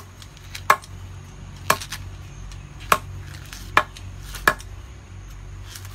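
A dog biting and tearing at a coconut's fibrous husk: six sharp snapping cracks at uneven spacing, roughly one a second.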